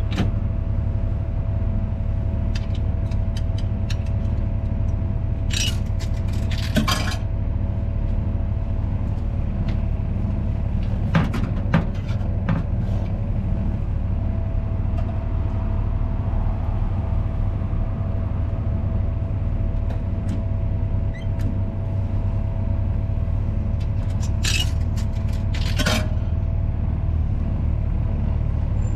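A steady low rumble throughout, with a faint hum, and three short clusters of metallic clicks and clunks from an old Westinghouse bottle vending machine being worked at its selector dial and coin mechanism.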